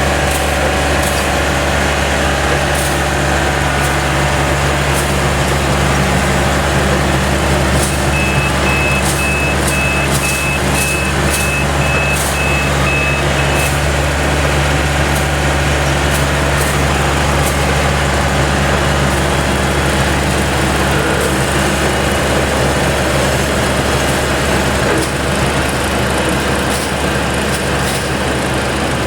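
Yanmar GC333 combine harvester running steadily under load, with sharp clicks heard again and again over the engine. A high warning beep repeats for about six seconds in the middle.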